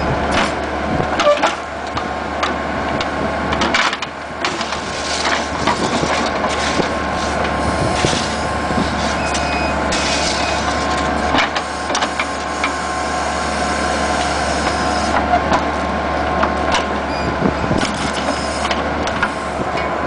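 A Bobcat skid-steer loader's engine runs steadily with a steady whine, while the backhoe attachment digs and makes repeated clanks and knocks.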